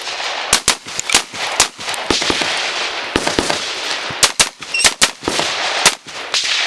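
A string of semi-automatic rifle shots fired in quick runs of two or three with short pauses between, as a practical-rifle stage is shot.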